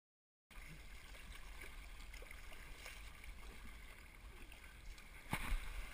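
Silent for the first half second, then faint water sloshing and gurgling against a kayak hull as it is paddled, with low wind rumble on the action-camera microphone. A sharp knock about five seconds in is the loudest sound.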